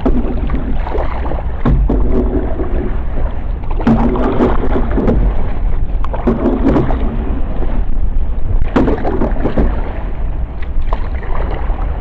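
Canoe paddle strokes in the water, coming about every two seconds, with a few sharp knocks, over a steady low wind rumble on the microphone.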